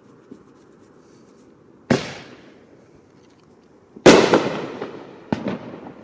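Fireworks exploding: three sharp bangs, the first about two seconds in, the second and loudest two seconds later, and a third about a second after that. Each dies away in echoes.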